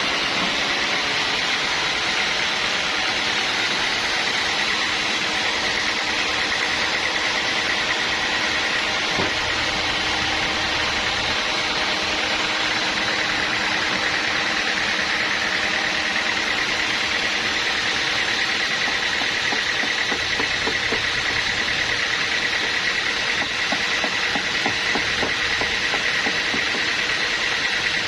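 Sawmill machinery running steadily: a constant rush of noise with a high, steady whine from the saw and its drive.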